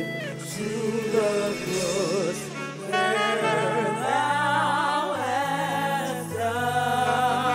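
Gospel worship music: a group of singers singing together into microphones over instrumental accompaniment with held low notes that change every second or so. The singing grows fuller about three seconds in.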